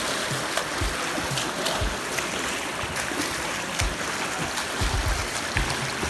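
Water rushing and splashing as a steady noise, with scattered small clicks and low thumps.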